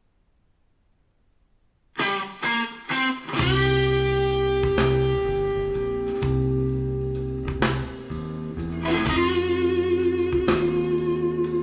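About two seconds of near silence, then a rock song starts: a few short guitar and drum hits, then electric guitar, bass and drums playing together from about three and a half seconds in. The song is played back through 10GDSh full-range loudspeakers.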